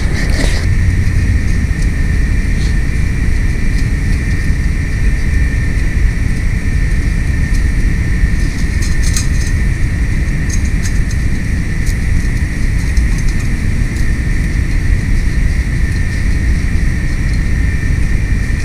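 A steady low rumble and a constant high whine from machinery running in the background, with a few light metallic clinks near the middle as engine parts are handled.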